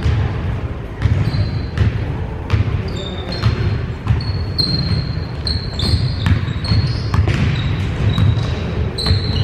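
Pickup basketball on a hardwood gym floor: the ball bouncing again and again, and sneakers squeaking in many short, high chirps as players cut and stop, over a steady low rumble of the large gym.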